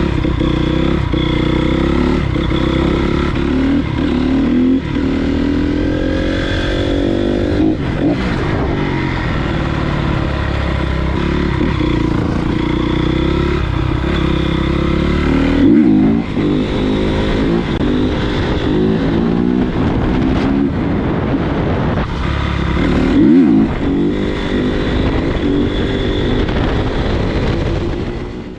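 2013 Honda CRF250R dirt bike's single-cylinder four-stroke engine being ridden hard, its pitch climbing and dropping again and again as it revs up and shifts through the gears. There are two brief louder surges, one about halfway and one near the end.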